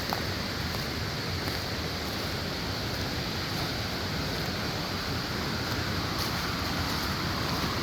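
Steady rushing of the creek and waterfall water.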